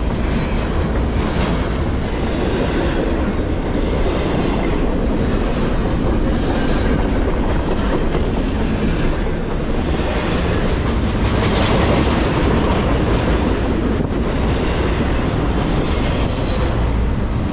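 CSX double-stack container train's well cars rolling past: a steady rumble of steel wheels on rail with a clickety-clack over the rail joints. A faint, brief high wheel squeal comes about nine seconds in.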